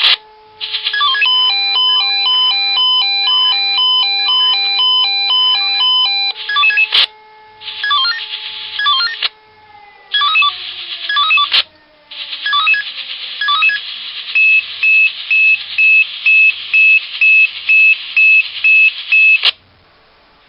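Swissphone Quattro 96 pager sounding its alert in several bursts of stepped beep melodies, ending in a run of evenly spaced beeps about two a second: a test alert. Under it a siren holds a steady tone and winds down about ten seconds in.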